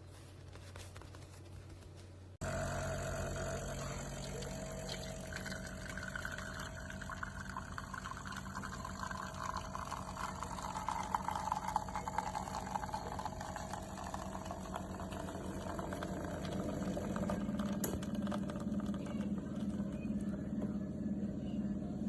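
Espresso machine running: a steady pump drone with water pouring. It starts abruptly about two seconds in.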